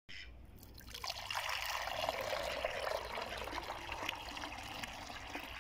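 Water poured from a plastic container into a small stone bowl, filling it with a steady splashing trickle that grows louder about a second in.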